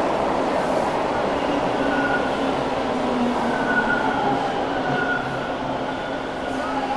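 Toronto subway train running in the station: a steady rumble of wheels on track with a thin high whine, easing off slightly toward the end.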